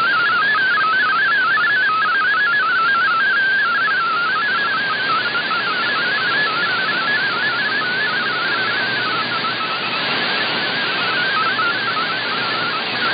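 MFSK32 digital-mode data signal from a shortwave broadcast, received in upper sideband: a single tone jumping rapidly between pitches, carrying text, over steady band hiss. The tone fades somewhat and the hiss rises about eight to ten seconds in.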